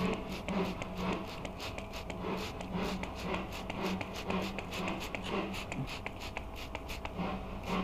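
Trigger spray bottle squirting soapy water onto an air-conditioner evaporator coil's copper return bends, a quick irregular series of short squirts: a bubble test for a refrigerant leak.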